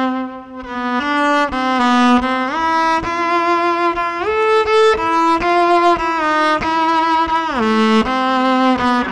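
Solo cello played with the bow: a single melodic line of held notes in the instrument's middle register, sliding in pitch between several of them.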